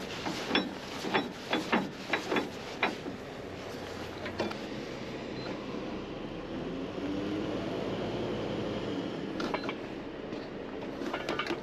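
Metal clinks and knocks of a spanner and steel fittings as a tow bar is clamped to a truck's front bumper. Then a steady mechanical hum with a faint wavering tone for a few seconds, and more clicks near the end.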